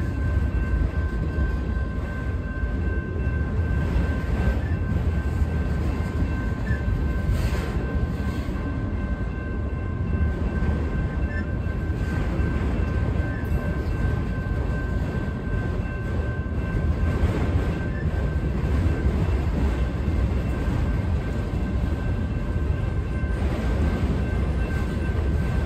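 Freight train of enclosed autorack cars rolling past, a steady low rumble of wheels on rail, with a thin steady high-pitched tone running over it.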